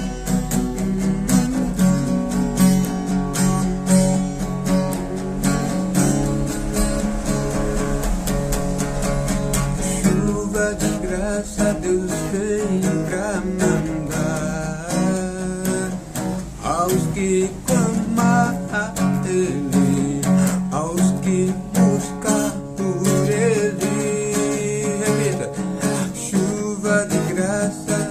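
Instrumental gospel music: strummed acoustic guitar chords, joined by a bending melody line from about ten seconds in.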